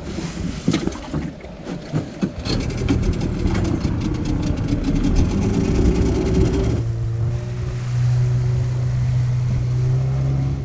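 Small fishing boat's engine running, building up through the first part and then settling into a steady low drone about seven seconds in, with a few knocks near the start.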